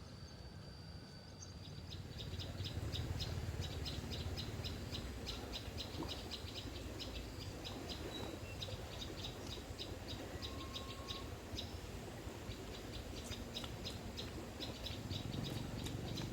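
Rapid, high-pitched chirping, many short chirps a second, starting about two seconds in, over a low steady rumble.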